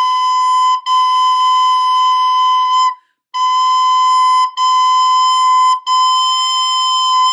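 Plastic soprano recorder playing the single note B over and over: long, steady held notes, each started with a tongued "t", with short breaks between them and a slightly longer pause about three seconds in.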